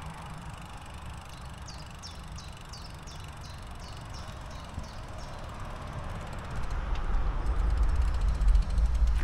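Steady noise of a bicycle ride along a path. A quick run of about ten high, falling chirps, some three a second, comes from about a second and a half in. A deep rumble swells up about six and a half seconds in and grows loud.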